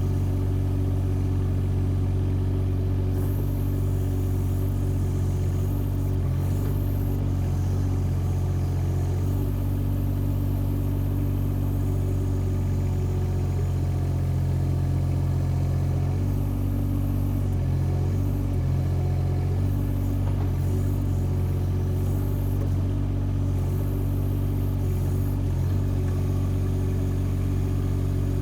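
Compact track excavator's engine running steadily, with brief small shifts in its tone every few seconds.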